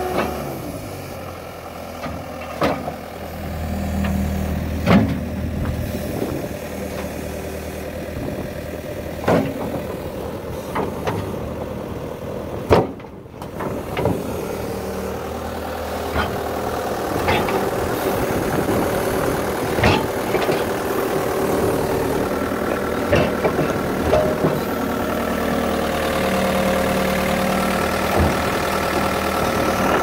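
Caterpillar 262C Series 2 skid steer loader's diesel engine running steadily, with scattered sharp clicks and knocks, the loudest about halfway through.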